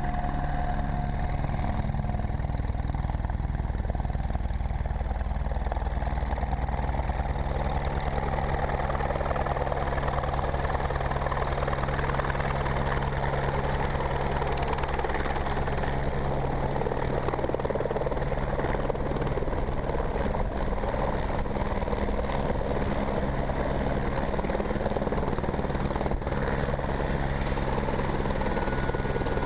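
Light helicopter flying in to land and touching down, its rotor beating steadily under a thin high turbine whine that drops a little near the end.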